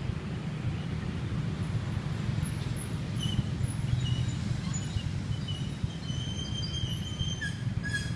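Steady low rumble of road traffic, with small birds chirping in short high calls over it, most of them in the second half.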